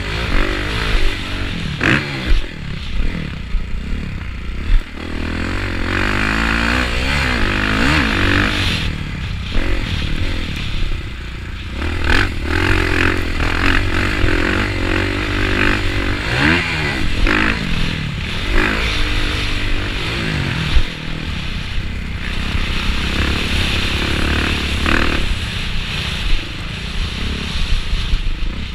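Motocross bike engine heard from the rider, revving up and dropping back again and again as it is ridden hard around a dirt track, with rattling from the rough ground and a few sharp knocks.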